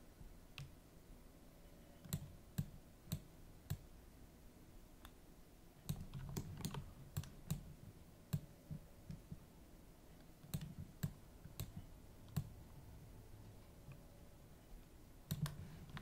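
Clicks of a computer mouse and keyboard, single ones and short runs a second or so apart, over faint room noise.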